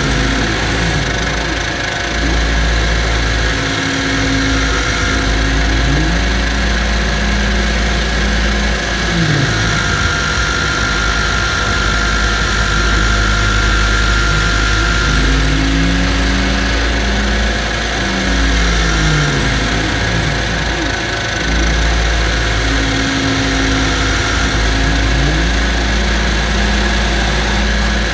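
Shop vacuum running, its hose nozzle sucking metal chips off a milling machine vise and table. The motor's pitch glides up and down again and again, and a thin whistle comes and goes.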